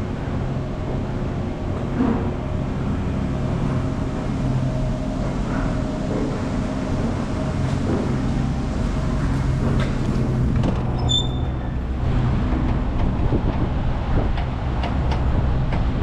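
Steady mechanical hum of a vehicle running, with a short high beep about eleven seconds in.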